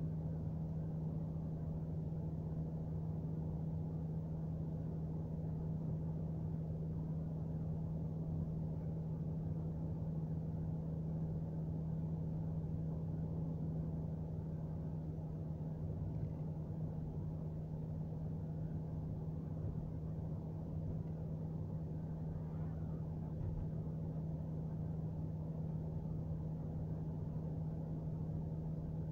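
A car cruising at a steady speed, heard from inside the cabin: an even drone of engine and tyre noise with a steady low hum.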